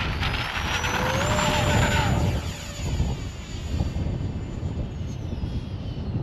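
Electric RC model jet whining at high power as it makes a low touch-and-go pass: the pitch climbs about a second in, holds, then drops away as it passes. Gusty wind rumbles on the microphone throughout.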